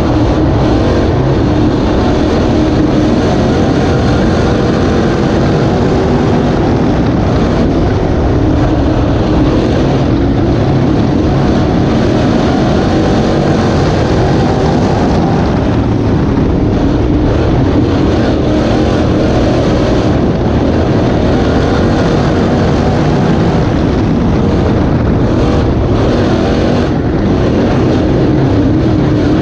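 Dirt-track race car's engine running loud and steady, heard from inside the cockpit.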